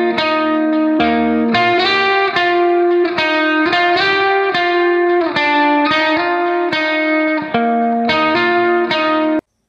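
Background music: a bright instrumental melody of quickly repeated struck notes. It stops abruptly just before the end.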